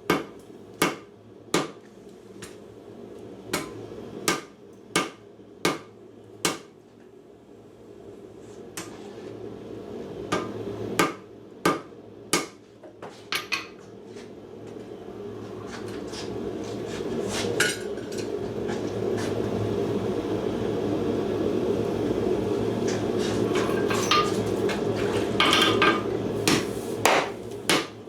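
A forging hammer striking hot steel on an anvil, a steady run of blows about one and a half a second, then slower, scattered strikes. From about halfway through, a steady rushing noise swells in the background and holds until near the end.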